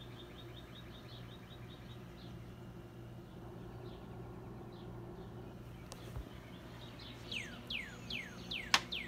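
Songbirds calling: a fast run of high chirps in the first couple of seconds, then a series of quick falling whistled notes, about two a second, near the end, over a steady low hum. A single sharp click comes just before the end.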